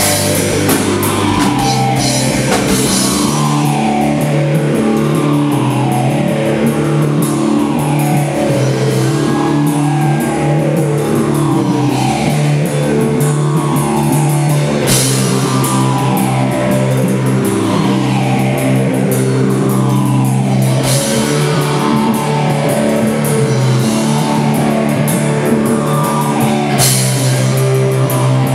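Live stoner rock band playing an instrumental passage: electric guitars over a drum kit, with no vocals and a falling sweep in the sound that repeats every second or two.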